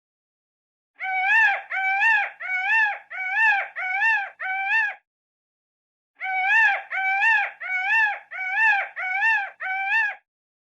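Peacock calling: two runs of six loud, nasal wailing calls, each about half a second long, rising then dropping in pitch, repeated at about three calls every two seconds, with a pause of about a second between the runs.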